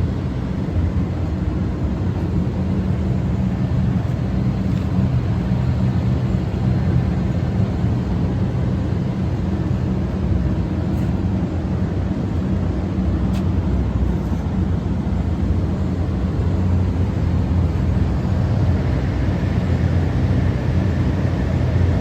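A steady low mechanical drone that holds level throughout, with a couple of faint ticks past the middle.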